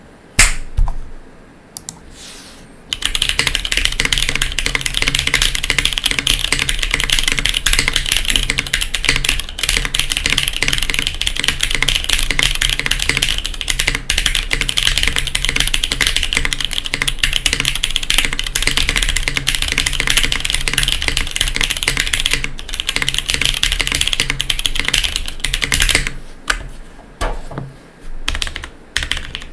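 Kage SE mechanical keyboard, O-ring mounted, with lubed and filmed Cherry MX Brown switches on a polycarbonate plate and GMK doubleshot ABS keycaps, being typed on. A few single keystrokes come first, then fast continuous typing from about three seconds in, thinning to scattered keystrokes near the end.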